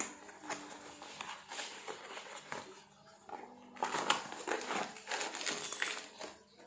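Cardboard bearing-unit box and plastic wrapping rustling and crinkling as the bearing is unboxed by hand, in a string of irregular scrapes and clicks, loudest about four seconds in.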